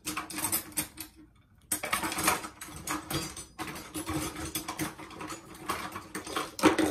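Crisp leaf lettuce crinkling and rustling as it is handled, a dense run of crackles with a short pause about a second in, over a faint steady hum.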